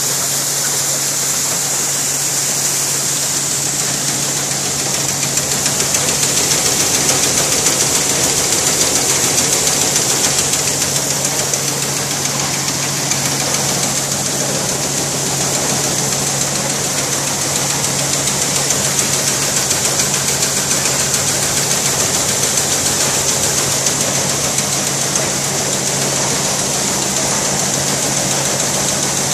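Seed-cleaning machine running steadily while sorting soybeans: a constant hum under an even rush of beans flowing through it and pouring from the outlet chute into a sack.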